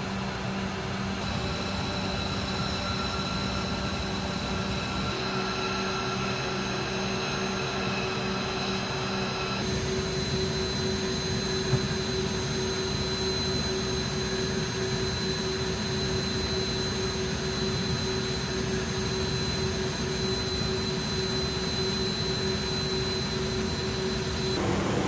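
Jet aircraft on the flight line running steadily: a continuous hum with a high, thin whine over it. The mix of tones shifts abruptly a few times, and there is a single short click about twelve seconds in.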